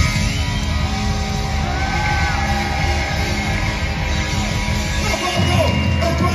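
Live rock band playing loudly: electric guitar, bass and drums, with a singer's voice over the band.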